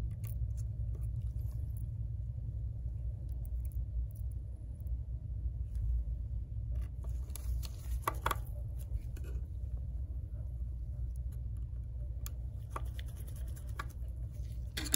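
Faint scattered clicks and light scrapes of a small precision screwdriver driving tiny screws into an iPhone 8 Plus's metal bracket, over a steady low hum.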